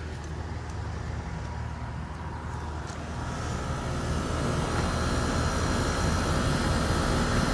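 A 2002 Rheem Classic 2-ton air conditioner condensing unit running in cool mode, just after starting up: a steady low compressor hum under the rushing air of the condenser fan, getting gradually louder through the second half.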